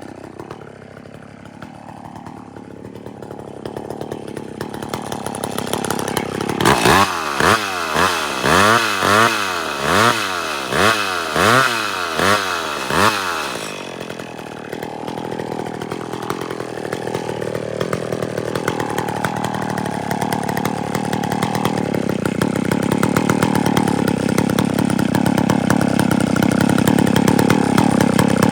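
Chainsaw running in a felling cut. For several seconds it revs up and down about ten times in quick succession, then settles into a steady cut that grows louder.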